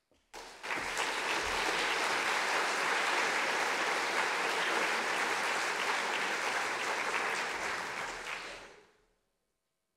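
Audience applauding, beginning almost at once and dying away about nine seconds in.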